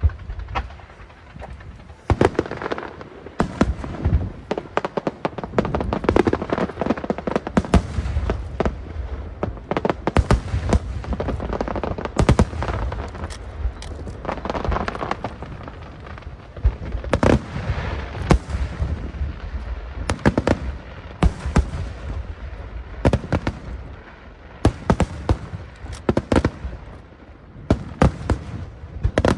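Large aerial fireworks shells bursting in quick, irregular succession: sharp bangs over continuous crackling and a low rumble.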